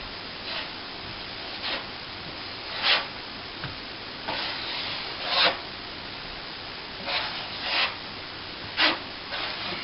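Plastering trowel scraping wet plaster over a patched hole in plasterboard, in a series of irregular strokes, the loudest about three, five and a half and nine seconds in.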